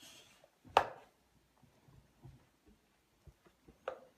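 Small plastic toy parts clicking as a plastic spinning top is handled and its orange spindle is pushed into the green disc: a sharp click about a second in and a lighter one near the end.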